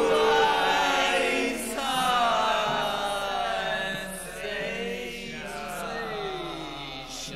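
Several voices chanting together in long drawn-out tones that slide slowly down in pitch again and again, growing quieter toward the end.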